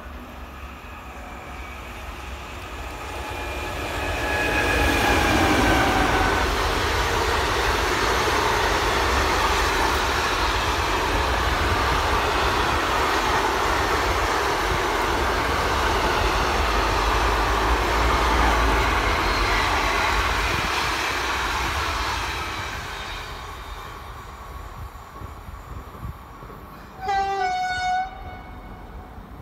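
SNCF BB 27000-class electric locomotive hauling a long freight train of semi-trailers approaches and passes close by. Its whine falls in pitch as it goes by, then the wagons roll past with a steady rumble that fades away. Near the end a horn sounds for about a second.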